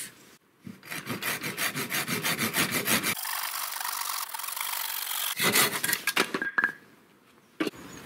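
Hand pruning saw with a coarse-toothed blade cutting through a green log: quick rasping back-and-forth strokes that stop a little over three-quarters of the way through.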